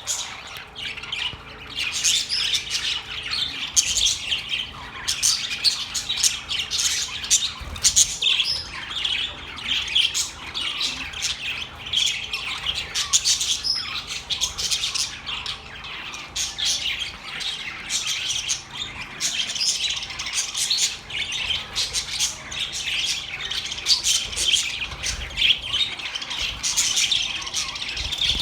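Many birds chirping and squawking at once, with overlapping high calls that never let up.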